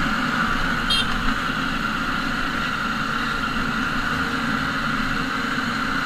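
A freshly serviced Jawa motorcycle running steadily on the road, a smooth, even engine and road drone, heard from the handlebar camera. A short high beep sounds about a second in.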